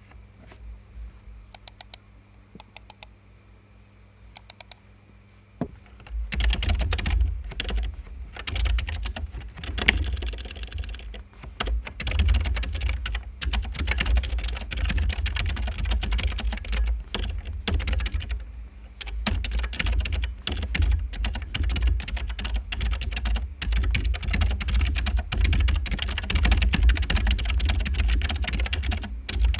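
Keychron K3 low-profile mechanical keyboard with clicky blue optical switches typed on with no desk pad, on a hollow desk. A few isolated clicks come first, then fast continuous typing starts about six seconds in, with a deep thud under the clicks.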